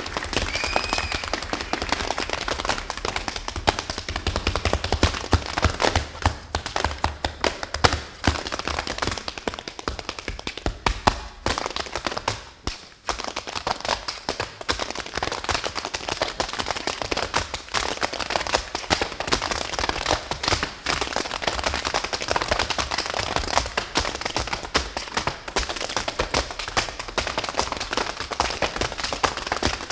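Metal-plated tap shoes striking a wooden stage floor in fast, dense tap-dance rhythms, unaccompanied by music. There is a brief lull about halfway through before the taps pick up again.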